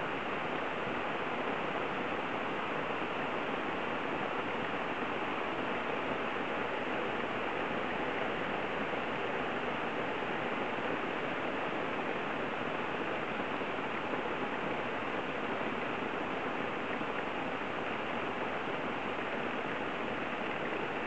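Heavy rain pouring steadily onto leafy trees, an even, unbroken hiss.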